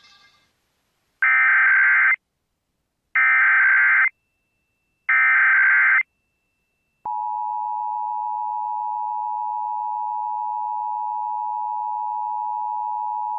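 Emergency Alert System SAME header: three bursts of warbling digital data tones, about a second each and two seconds apart. About seven seconds in, the steady two-tone EAS attention signal starts and holds.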